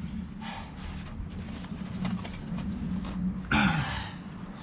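Small metal brake pad clips being handled, with faint light clicks over a steady low hum, and a short breathy exhale about three and a half seconds in.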